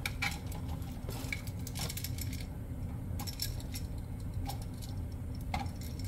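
Scattered light clicks and small metallic clinks from handling electrical wires and a GFCI outlet, as the wire ends are fitted into the outlet, over a steady low hum.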